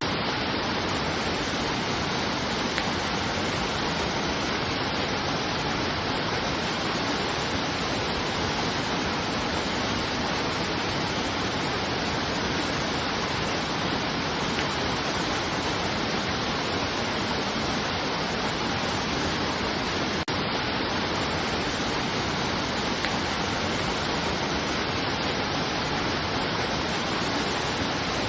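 Steady rushing water, an even, unchanging hiss with no distinct splashes.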